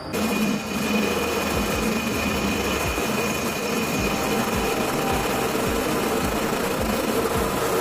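Homemade metal lathe running with a steel workpiece spinning in the chuck: a steady motor and spindle hum with a regular low thump about twice a second.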